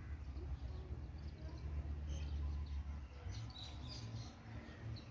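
Small birds chirping in short high calls, several in quick succession past the middle, over a low steady rumble.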